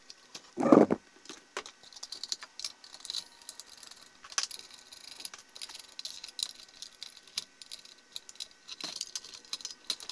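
Small plastic and metal clicks and rattles as the clear plastic blade guard of a Bosch miter saw is handled and fitted back onto the saw, with one louder knock just under a second in.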